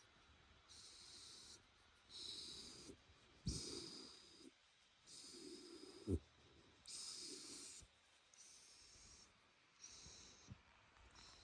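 Shiba Inu whistling through its nose as it breathes, about eight faint whistling huffs, with two short, sharp snorts, one about a third of the way in and one near the middle. It is the relaxed, drowsy nasal breathing of a dog enjoying a head rub.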